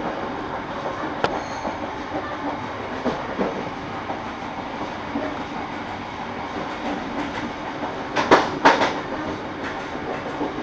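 Argo Parahyangan passenger train running, heard from inside the coach: a steady rumble of wheels on rails with scattered light clicks, and two louder clacks about eight seconds in.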